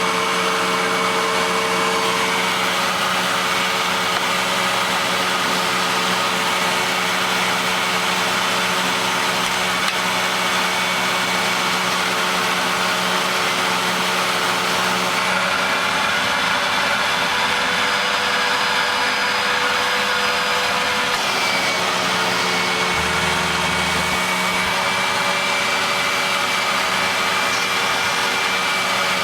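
Vacuum cleaner running steadily, its motor note dropping slightly in pitch about halfway through and again a few seconds later.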